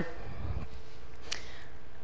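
A pause between sentences: steady room tone with a low hum, and a couple of faint brief noises, the last about a second and a half in.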